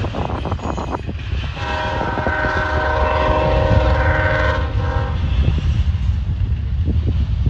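CSX diesel freight locomotives passing with a steady low engine rumble and wheels clicking over the rails in the first second. A locomotive air horn sounds one long chord from about a second and a half in to about five seconds.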